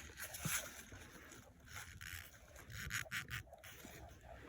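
Faint, intermittent rubbing and handling sounds, a few short scuffs, as a shop rag wipes the top of an old engine piston.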